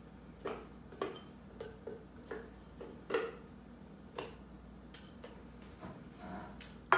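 Soaked, pitted dates being tipped and pushed from a ceramic bowl into a blender jar: a run of light, irregular taps and soft knocks as they drop in.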